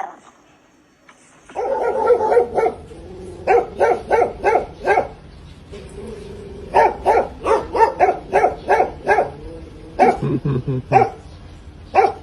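A dog barking in quick runs of short barks, about four a second, in several bursts separated by brief pauses.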